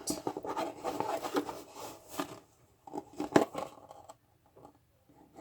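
A teaspoon scooping borax powder out of its container: a quick run of short scrapes and crunches, another brief flurry a little after three seconds, then only a few faint taps.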